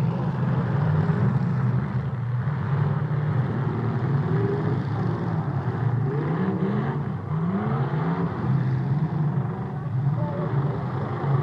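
Demolition derby cars' engines running with a loud steady drone, revving up and down several times about halfway through.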